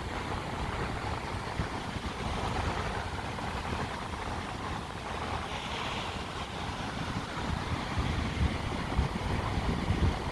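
Sea surf washing in steadily, with wind gusting on the microphone as an uneven low rumble.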